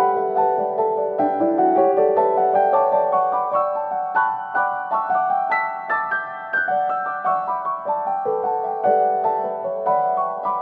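Background music: a piano melody of quick, evenly paced notes.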